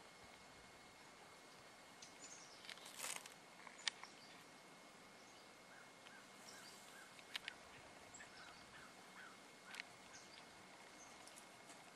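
Near silence: faint ambient hiss with a few soft bird chirps and several sharp clicks, the loudest about four seconds in.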